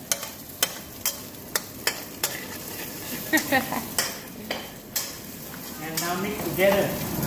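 Metal spatula clinking and scraping against a steel wok while egg is stir-fried over a gas burner, with a sharp clack about every half second over the steady sizzle of frying.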